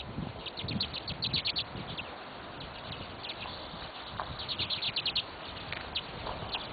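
Small birds chirping in quick chattering runs of short high notes, one about a second in and another about four and a half seconds in, with single chirps between. A few soft low thuds come close to the microphone.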